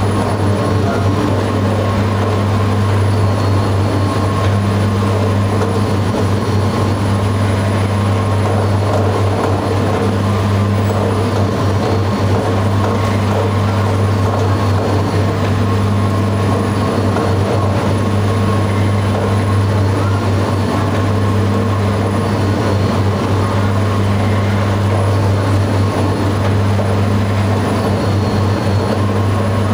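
Electric dough divider-rounder machine running, a steady low motor hum.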